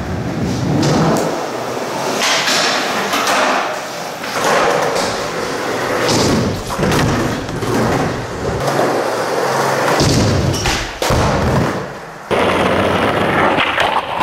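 Skateboard wheels rolling on smooth concrete, broken by the knocks and thuds of tricks: the board popping, striking ledges and landing.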